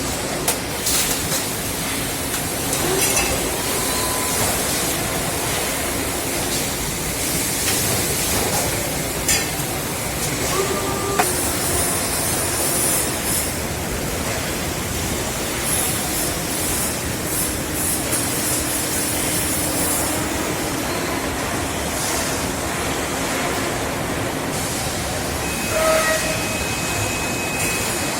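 Industrial chest freezer production line running: a steady factory machinery noise with intermittent hisses of air, scattered clicks and a few short tones.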